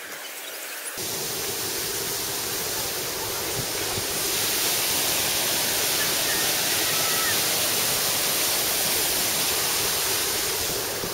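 Water rushing over the rocks and small cascades of a shallow stream, a steady hiss that grows louder about a second in and again about four seconds in.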